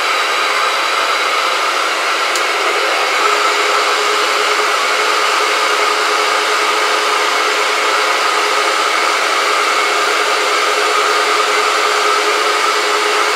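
Grizzly G5963 surface grinder running with its dust-extraction vacuum drawing through the hose on the wheel guard: a steady whirring hiss with a few faint held tones.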